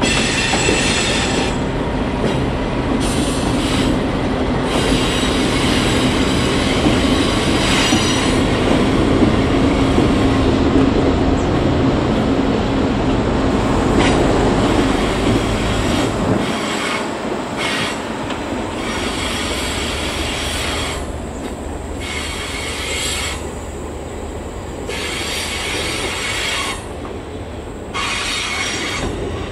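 Great Southern passenger train crossing a curved viaduct: the lead diesel locomotives' engines run heavily for the first half, then drop away about halfway through. The passing carriages' wheels keep squealing on the curve, the high-pitched squeal coming and going.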